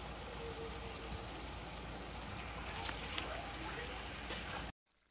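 Diced pumpkin frying in hot oil in a large pot: a steady sizzle with a few faint clicks, cutting off suddenly near the end.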